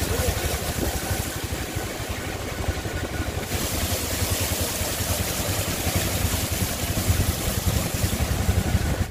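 A vehicle moving along a flooded, rain-soaked street: a steady low rumble with an even hiss of wet road and rain. It cuts off suddenly at the end.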